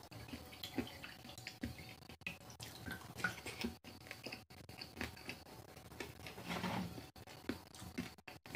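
Spiced water for pani puri dripping and splashing into a small bowl as fingers and a crisp puri shell are dipped in it, with scattered light clicks.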